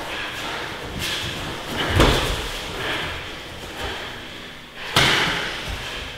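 Impacts of two fighters grappling on gym mats: a heavy thud about two seconds in and a sharp slam about five seconds in that rings briefly in the hall, with softer scuffing between.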